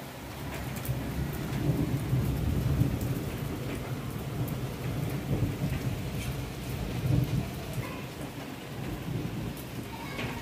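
Thunder rumbling long and low over steady rain, swelling about a second in and rolling on in waves, with scattered drips ticking through the rain.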